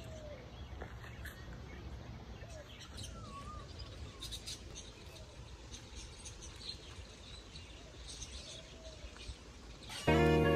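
Scattered bird chirps and short whistled calls over a steady low rumble of outdoor ambience. About ten seconds in, music with a violin-like melody starts abruptly and is the loudest sound.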